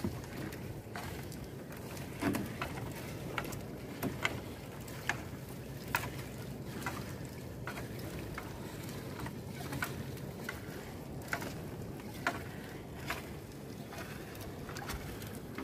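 Small fishing boat on the water, with a steady low wash of water and scattered knocks and taps against the boat while a sinking fishing net is hauled aboard.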